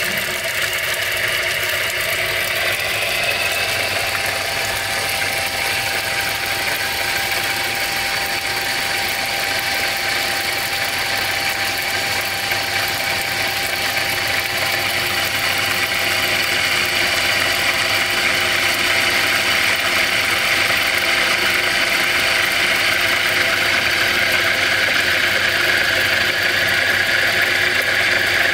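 Homemade brushless motor driving a small water pump, running steadily with a whir and a constant tone, while a jet of water sprays and splashes from the pump outlet. The sound gets slightly louder about halfway through.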